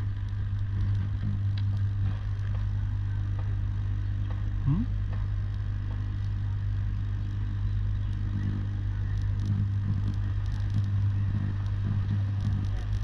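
Steady low electrical hum of energized high-voltage substation equipment, with a few faint clicks of tools and a short rising tone about halfway through.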